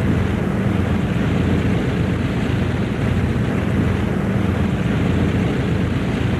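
P-2E Neptune's Wright R-3350 radial piston engines running steadily with propellers turning: a deep, even drone during the engine warm-up.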